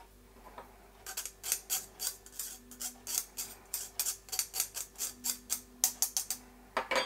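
Metal teaspoon scraping paprika powder through a fine stainless wire-mesh sieve, pressing out the lumps. It makes quick, sharp scratching strokes, about four a second, starting about a second in.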